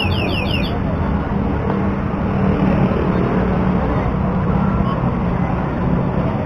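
Steady low rumble of road traffic, with a quick run of high chirps right at the start.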